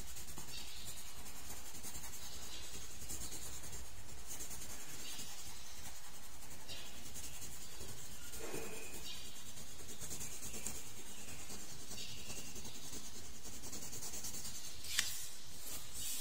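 Colored pencil shading on paper, a repeated scratching of short strokes, with one sharp click about fifteen seconds in.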